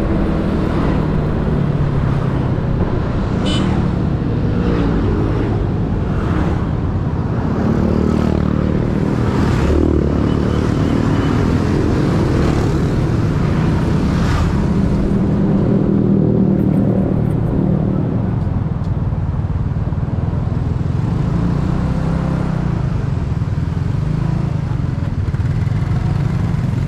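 Yamaha Mio automatic scooter's small single-cylinder engine running steadily on the move, its note rising and falling a little with speed, over road and traffic noise with a few vehicles passing.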